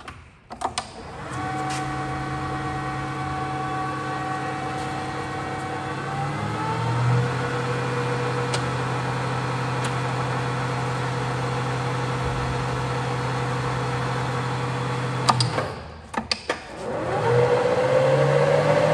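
EMCO Emcomat 20D lathe's spindle drive starting after a few clicks and running with a steady hum and whine; about six seconds in the pitch rises as the speed goes up. Around fifteen seconds in it cuts out after a few clicks, then starts again with a rising whine as it speeds up.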